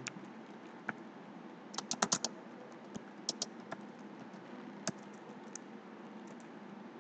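Computer keyboard being typed on in short, irregular runs of keystrokes, with a quick burst of several keys about two seconds in.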